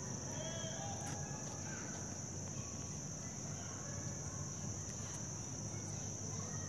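Steady high-pitched insect chorus, one unbroken trill, over a low steady hum, with a few faint chirps in the first seconds.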